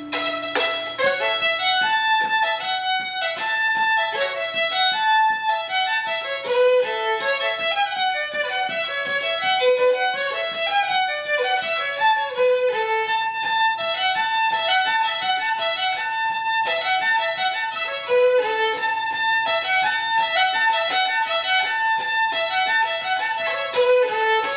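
A fiddle played solo: a fast, lively tune of quick running notes, bowed without a break.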